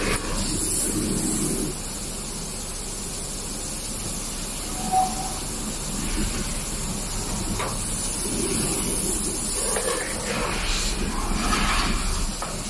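Electric panel bender running: a steady mechanical hum with hissing that swells near the start and again about eight seconds in, and one short tone about five seconds in.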